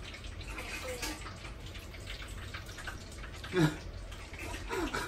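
Two cats grooming, with a soft run of small wet licking clicks as they lick their paws and fur. A short voice sound comes about three and a half seconds in, the loudest moment, with a weaker one near the end.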